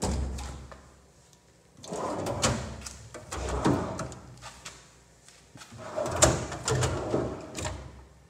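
Steel drawers of a Husky tool chest sliding open and shut about four times, each a short rolling rumble ending in a click.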